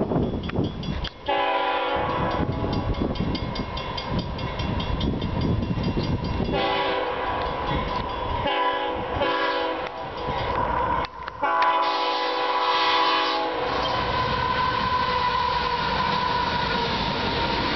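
Diesel locomotive horn on an approaching CSX freight train sounding several blasts, mostly long with a short one between. Then the locomotives pass close by with a steady engine and wheel rumble.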